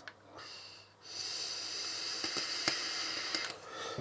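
Vaping on an e-cigarette: a short hiss, then a longer sizzling hiss of about two and a half seconds as air is drawn through the tank over the firing coil.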